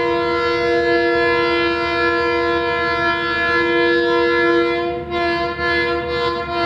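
Diesel locomotive air horn held in one long, steady chord of several notes as the train approaches, wavering and dipping briefly about five seconds in.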